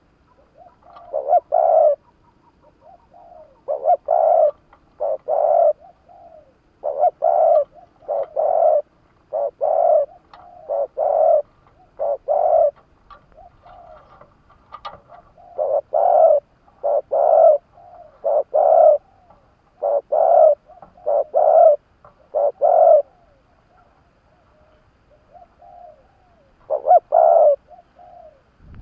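Spotted dove (chim cu gáy) decoy bird cooing: repeated phrases of low, hollow coo notes separated by short pauses, with a longer pause near the end before it starts again. It is a caged lure bird calling to draw in wild doves.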